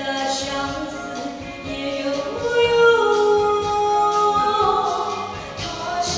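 A song with accompaniment, sung with long held notes.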